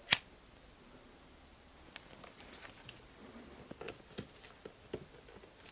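One sharp click just after the start, then faint light taps and soft rubbing as a bone folder presses a metal-toothed zipper's fabric tape down onto a leather wallet part.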